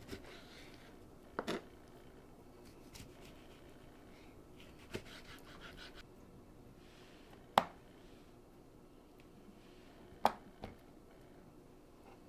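Kitchen food-preparation handling: soft scraping and rustling broken by about five sharp knocks, the loudest two near the middle and about three-quarters through.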